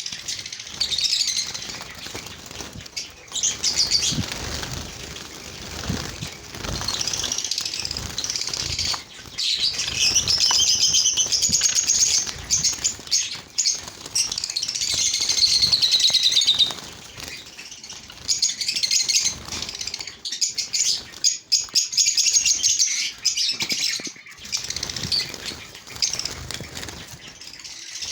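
A flock of small caged birds chirping constantly in many overlapping high-pitched calls, with the flutter of wings. The chirping is busiest about a third to halfway through and thins briefly just after.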